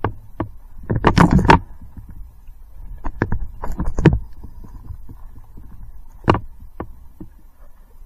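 Irregular knocks, thumps and rustling of gear being handled and a hose being dragged through brush close to the microphone, with clusters of clatter about a second in and again around three to four seconds, over a steady low rumble.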